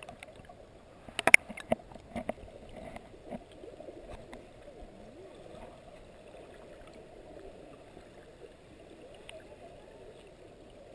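Muffled rush of stream water heard through a submerged camera, with a few sharp clicks and knocks about a second in.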